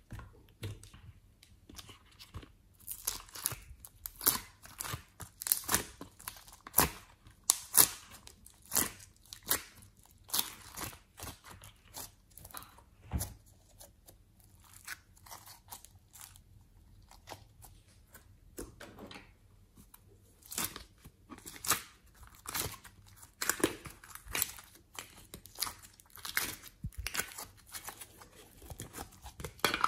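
Glossy slime squeezed and stretched by hand, giving irregular sticky clicks, pops and crackles, often several a second, with short quieter gaps between handfuls.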